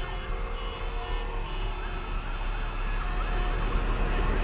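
Dense city street din: traffic noise with emergency sirens wailing over it.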